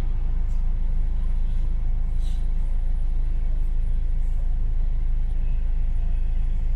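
London bus running along the road, heard from on board: a steady low rumble of engine and tyres, with a few faint clicks.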